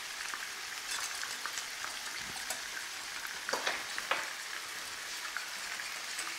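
Minced lamb frying in olive oil in a pan, a steady sizzle with scattered clicks and scrapes of a utensil against the pan, a few louder ones just past halfway.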